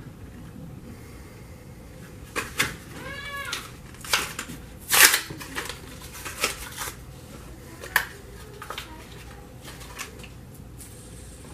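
A fidget spinner's plastic blister pack and cardboard backing being torn and pried open: scattered crinkles and sharp crackles, the loudest about five seconds in. About three seconds in there is a short squeak that rises and falls in pitch.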